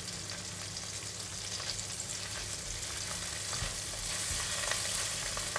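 Garlic oil sizzling steadily in a nonstick wok as fermented bean curd and minced garlic are stirred and mashed with a silicone spatula, with faint scrapes of the spatula on the pan.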